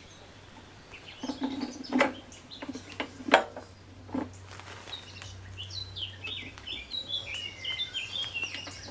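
A few sharp metal knocks and clinks as the mower's handlebars and fuel tank assembly are handled and fitted, the loudest about three seconds in. Birds sing through the second half.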